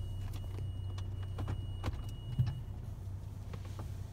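PDQ LaserWash 360 Plus touchless car wash starting its cycle, heard from inside the car: a steady low hum with a faint high whine that stops about two and a half seconds in, several light clicks, and a single thump just before the whine stops.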